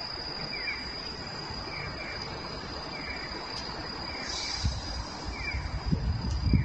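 Japanese audible pedestrian signal (Nisshin No. 1015, version 1 sound unit) playing its electronic 'piyo piyo' chick-chirp guide tone for a green light: short falling chirps about once a second from the street speaker. A low rumble joins in over the last couple of seconds.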